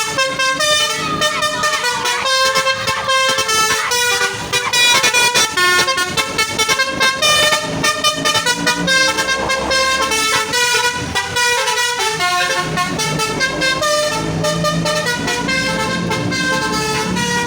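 A truck's Basuri telolet horn, a multi-trumpet air horn, playing a quick melody of short notes that jump from pitch to pitch, with the truck's engine rumbling underneath near the end.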